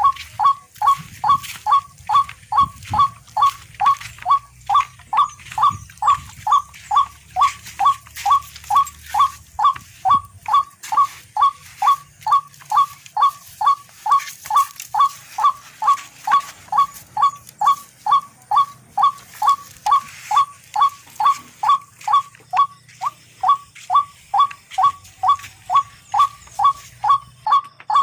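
Tikling (barred rail) call: a short falling note repeated steadily about twice a second, the kind of call used to lure the birds for catching.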